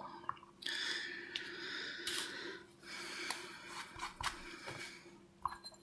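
Cloth rag rustling and rubbing as greasy fingers are wiped clean, in two stretches of soft scrubbing, with a few light clicks of small parts being handled.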